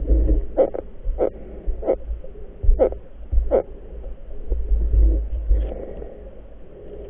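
Muffled underwater noise with the microphone inside a waterproof camera housing: a steady low rumble of moving water, with a handful of short, irregular knocks in the first few seconds.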